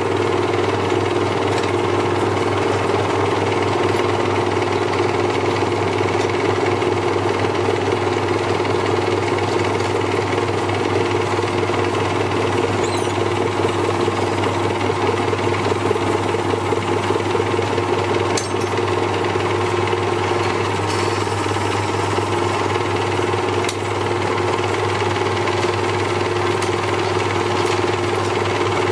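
A small workshop lathe running steadily, a continuous rattling hum, while an ebonite pen blank spinning in its chuck is worked with a hand-held tool. A couple of faint clicks sound about two-thirds of the way in.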